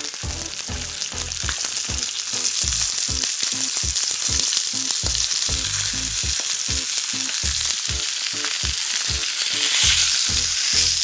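Trout fillets frying skin-side down in a little oil in a hot cast iron skillet: a steady, loud sizzle. The sizzle swells near the end as a fillet is lifted and turned with a fish spatula.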